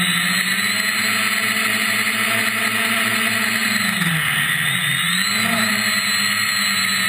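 Brushless MT2206 motors and propellers of an FPV multirotor drone whining steadily in flight, with rushing air noise. About four seconds in, the pitch drops sharply and rises back within about a second as the throttle is cut and reapplied during an acro flip.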